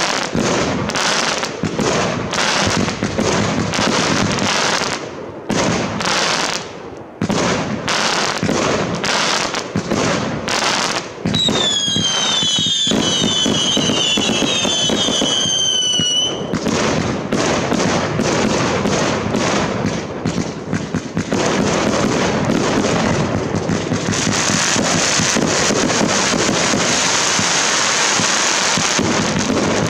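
Fireworks display: a rapid run of sharp bangs from bursting shells, then from about eleven seconds in several high whistles falling in pitch together for about five seconds, then dense continuous crackling for the rest.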